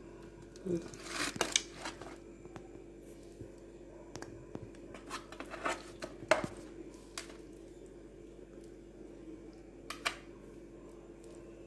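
Kitchen handling noises: a few short scrapes and clicks of utensils against a dish, in three small clusters, the sharpest a single click about halfway through.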